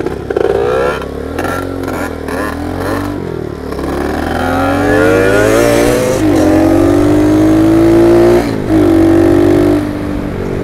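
A monkey bike's small single-cylinder four-stroke engine pulling away and accelerating, its pitch rising in glides as it gathers speed. It then holds a steady, loud note, dipping briefly once about eight and a half seconds in.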